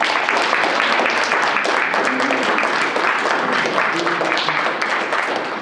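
Audience applauding: dense, steady clapping from a seated crowd, easing off slightly near the end.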